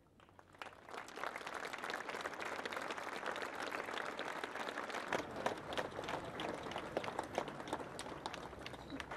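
A large crowd applauding, the clapping swelling up during the first second and then holding steady.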